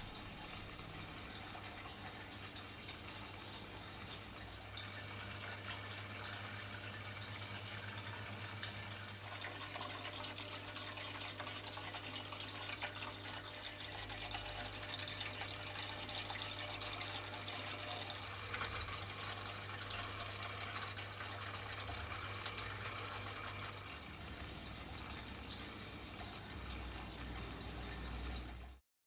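Water trickling and splashing down a self-contained cascade water feature, the Kelkay Waterfall Dancer, with a low steady hum beneath it that stops near the end. The sound cuts off suddenly.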